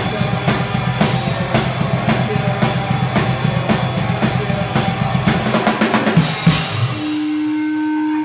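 Live rock band playing: a drum kit drives an even beat with bass drum and snare under electric guitar and bass. The song ends with a few last drum hits about six and a half seconds in, leaving one steady held note ringing near the end.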